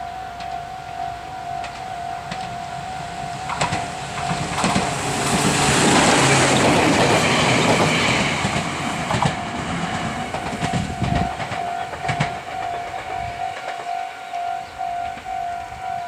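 A Meitetsu 1800-series electric train passes close by, its wheels clacking over rail joints. The noise swells to its loudest about six to eight seconds in and dies away after about thirteen seconds. A level crossing's electronic warning bell rings on steadily in a fast pulsing tone.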